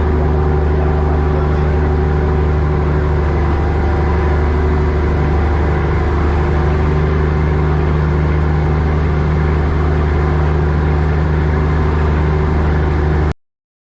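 Boat engine running steadily at an even speed, with a deep, unchanging hum; it cuts off abruptly near the end.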